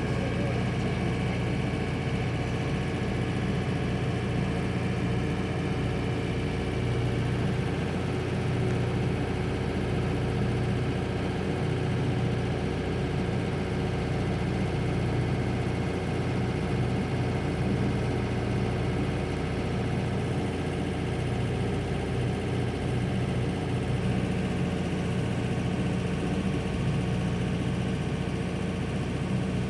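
Diesel tractor engine running at a steady speed, heard from behind a tractor cab's window, with a low, even hum.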